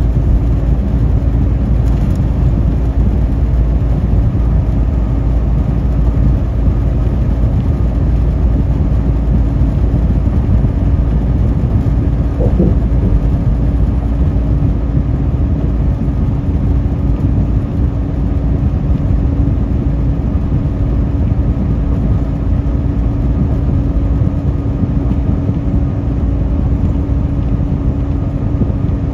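Steady road and engine noise of a semi-truck driving at highway speed, heard inside the cab: a constant low rumble with a steady hum.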